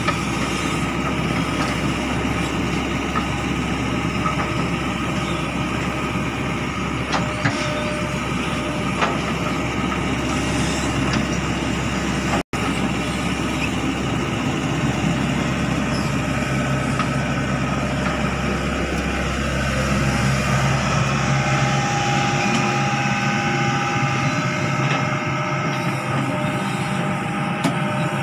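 Crawler excavator's diesel engine running steadily, with a few sharp clanks.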